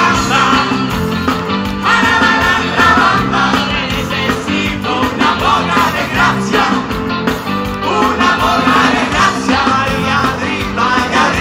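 Live band playing an upbeat rock-and-roll song, several voices singing into microphones over electric guitar, keyboard and a steady beat, heard loud through the stage PA.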